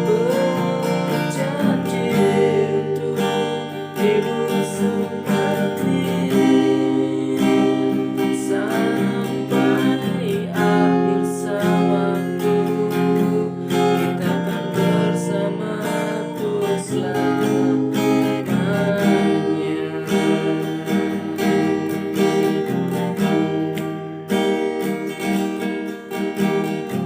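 Acoustic guitar strumming chords steadily, with a singing voice at times.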